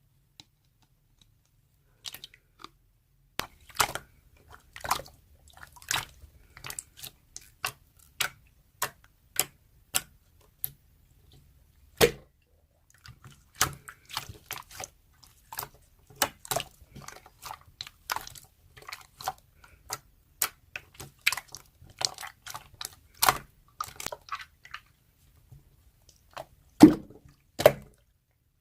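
Slime being squished and pressed by hand, making irregular sticky clicks and wet pops, a few a second, after a short silent start.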